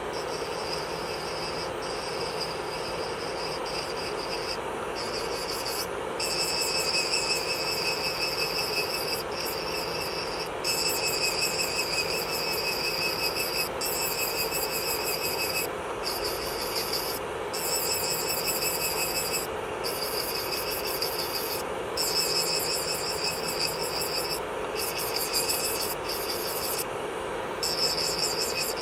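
Electric nail drill (e-file) running steadily, with a high-pitched buzzing grind that starts and stops in short passes of one to three seconds as the bit is worked against the nail.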